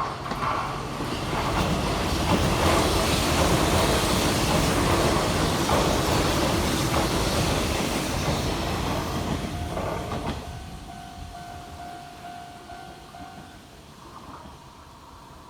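An electric train passes over a level crossing, its wheels clattering over the rail joints, loud for about nine seconds and then fading away. The crossing's warning bell rings, plainest once the train has passed.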